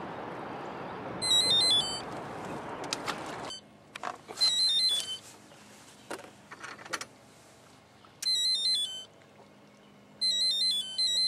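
Short electronic chirping alert, a quick run of stepped high-pitched beeps, sounding about five times at uneven intervals. A steady rush of noise fills the first three and a half seconds, and a few light knocks and clicks follow.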